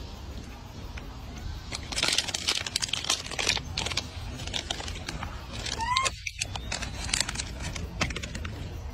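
Plastic bag crinkling in bursts of sharp crackles as it is handled, with a short rising squeak about six seconds in.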